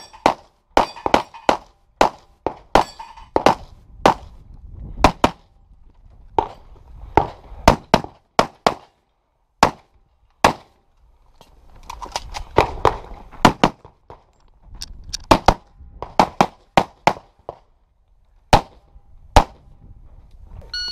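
Rapid pistol gunfire from a Limited-division competition handgun, fired in quick pairs and strings with short pauses between them. Some shots are followed by a brief metallic ring, as of steel targets being hit.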